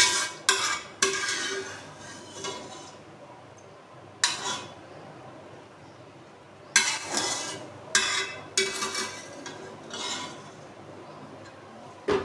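A metal spoon scraping and clinking against aluminium cooking pots as cooked mince is scooped from one pot into another. The sound comes in irregular clusters of clatters and scrapes, with short quieter gaps.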